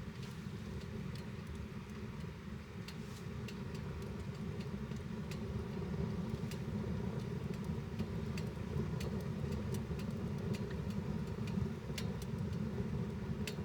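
Mini wood stove burning, with irregular sharp crackles over a steady low rumble.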